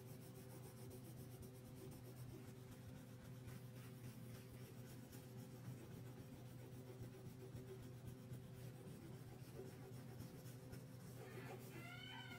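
Faint scratching of a wax crayon rubbed back and forth on paper as a colouring page is shaded in, over a steady low electrical hum. Near the end a drawn-out pitched call begins.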